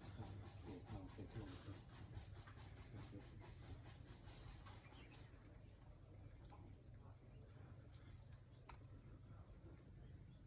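Near silence with faint insects chirring in a rapid pulsing trill, fading about halfway through and returning faintly near the end.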